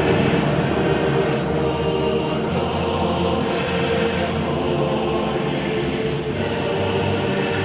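Boeing 737-800 cabin in flight: a steady drone of its CFM56 jet engines and the rushing airflow, with several steady humming tones over a low rumble.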